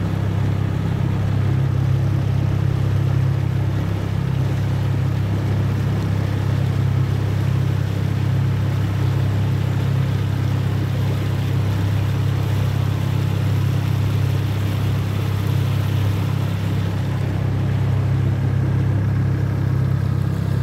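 Yamaha 25 hp outboard motor running steadily at an even cruising speed, pushing an inflatable boat along. It makes a constant low drone with no revving up or down.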